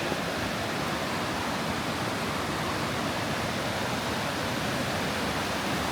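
Steady rushing of falling water, an even hiss that stays constant throughout.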